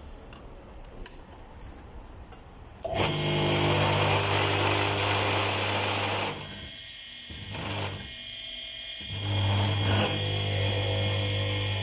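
Repaired concrete mixer motor switched on about three seconds in, starting at once and running with a steady hum and whir. It drops in level twice for about a second each, between about six and nine seconds, then runs steadily again.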